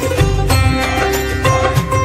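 Background music with a steady beat and sustained melodic notes in an Indian film-music style.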